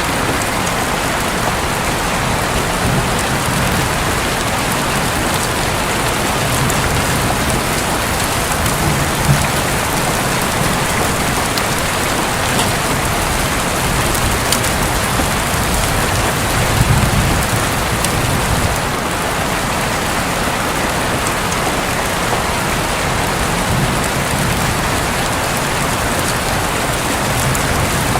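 Steady heavy rain drumming on a roof, with a soft, low rumble of distant thunder swelling now and then, most strongly a little past halfway.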